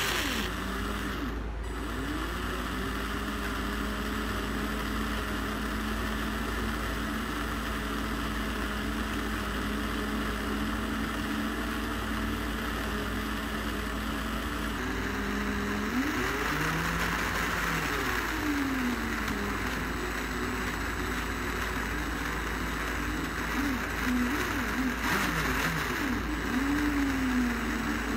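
Small electric motor driving a homemade cardboard front axle through a chopstick drive shaft and plastic spur gears, running with a steady whir. Its pitch rises and falls several times, most clearly in the second half.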